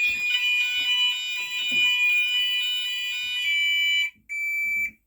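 GENT Vigilon fire alarm sounder sounding a steady, high electronic alarm tone. It cuts off about four seconds in, gives one short final blast, then stops.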